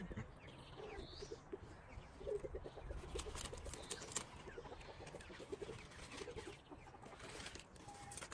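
Chickens clucking faintly in short runs of notes. About three to four seconds in come a few sharp clicks and rustles as a broccoli head is taken hold of and picked among the leaves.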